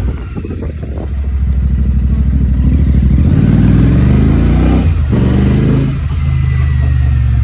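Royal Enfield Shotgun 650's 648 cc parallel-twin engine under way, running steadily, then revving up for about a second and a half. About five seconds in the revs drop suddenly and it carries on at a lower pitch, as at an upshift.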